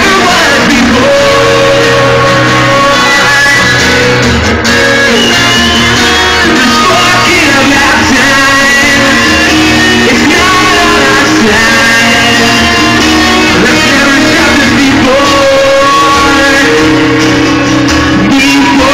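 Loud live rock band with electric guitars and a lead singer singing into a microphone, heard from the audience in a large room.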